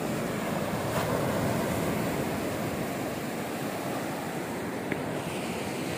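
Surf breaking and washing up a sandy beach, a steady rush of small waves.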